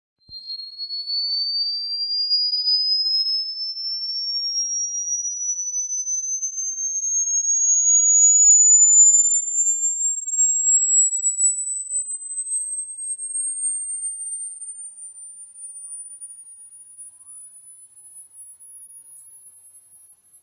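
A single high-pitched electronic sine tone, played as a rodent-repellent sound, gliding slowly and steadily upward in pitch. It is loudest a little before the middle and grows fainter through the second half as it climbs higher.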